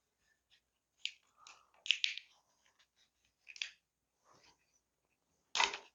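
Black electrical tape being pulled off the roll and wrapped around split plastic wire loom: a string of short crackling pulls, loudest about two seconds in and again near the end.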